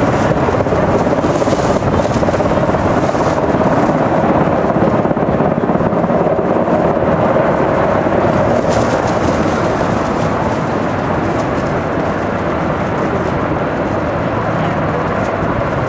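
Two Black Hawk helicopters flying in formation: a continuous, loud rotor chop with a steady tone under it. The tone fades about nine seconds in, and the level eases a little after that.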